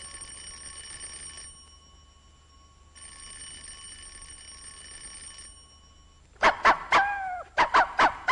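Electric doorbell ringing: a steady ring stops about a second and a half in, then rings again for about two and a half seconds. About six seconds in, a dog barks about six times in quick succession.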